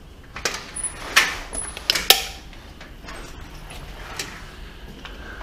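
A front door being unlatched and opened: four or five sharp clicks and knocks of the latch and metal frame in the first two seconds, the loudest about two seconds in.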